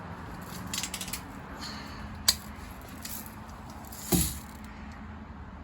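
Daisy Red Ryder lever-action BB gun being handled: small mechanical clicks of the lever about a second in, a sharp click a little after two seconds, then a louder shot about four seconds in.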